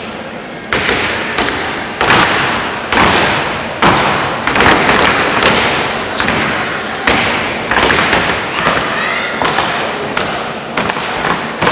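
Step team stomping and clapping in unison on a stage, a loud percussive beat of one to two sharp hits a second, each echoing in a large hall, over continuous crowd noise.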